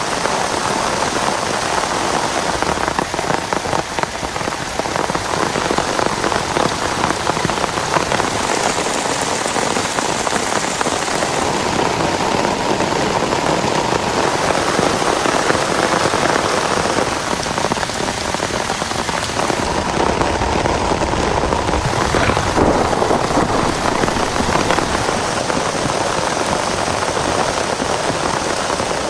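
Heavy rain falling steadily in a dense patter, with no let-up.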